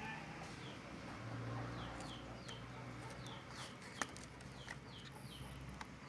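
A bird chirping over and over, short falling chirps about twice a second, over a low steady hum. A sharp click stands out about four seconds in, with a few fainter clicks around it.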